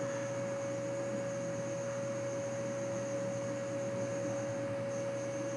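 A steady electrical hum: one constant mid-pitched tone with a fainter high whine, a low hum and hiss underneath.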